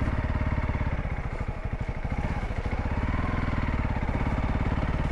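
Single-cylinder four-stroke dual-sport motorcycle engine running at low, steady throttle, its firing pulses even, with a brief waver in the note about two seconds in.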